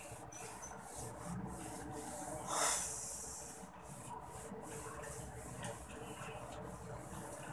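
Whiteboard being wiped clean with an eraser: faint rubbing strokes against the board, with one brief louder hiss about two and a half seconds in.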